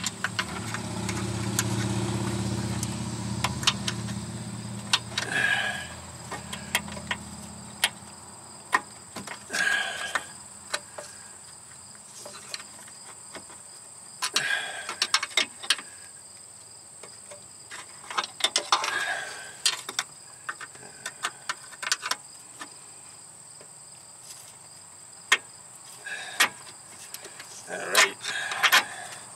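Crickets chirring steadily, with scattered short metallic clicks and clinks of hand tools on the steering rack's mounting bolts. A low engine hum fades out over the first several seconds.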